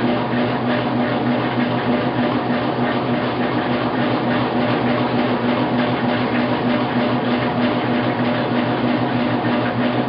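Washing machine running: a steady mechanical hum under an even rushing noise, unchanging throughout.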